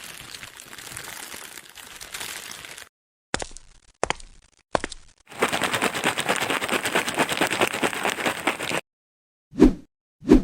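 Small plastic building bricks rattling and clattering, with three sharp separate clicks in the middle. Low thuds come at an even pace near the end.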